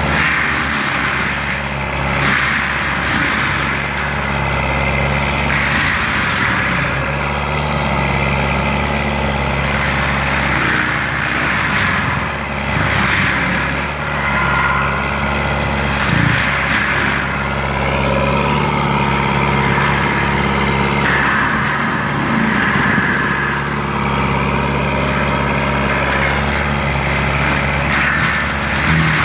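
Lamtrac LTR6125 forestry carrier's diesel engine running steadily under load while its Denis CIMAF 180D drum mulcher shreds brush and wood, a rough grinding noise that swells and fades every few seconds over the engine.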